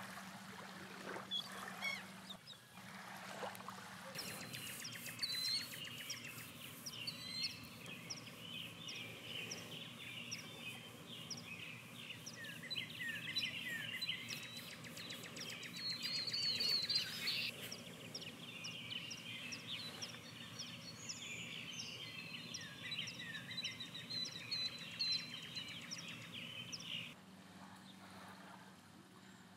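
Many birds chirping and calling over one another in a dense chorus. It builds up a few seconds in and cuts off abruptly near the end.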